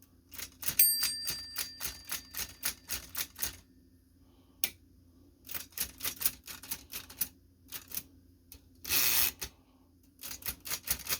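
Keys of a Chicago typewriter clacking in quick runs of strokes, with a single bell ding about a second in. A short rasp comes about nine seconds in.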